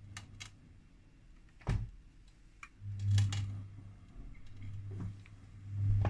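Miele Softronic W3523 front-loading washing machine running with an extreme overload of a winter blanket: its drum motor hums in spells, with a sharp knock about two seconds in and scattered clicks.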